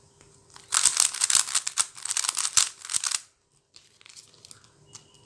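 Plastic pieces of a MoYu MF3RS 3x3 speed cube clicking and rattling as the cube is worked in the hands: a dense run of rapid clicks lasting about two and a half seconds, then a short pause and fainter clicks.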